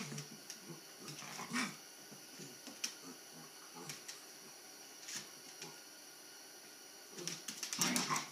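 Puppies play-fighting: low growls and grunts with the odd yip, and claws clicking on a wooden floor. The scuffle is loudest just before the end.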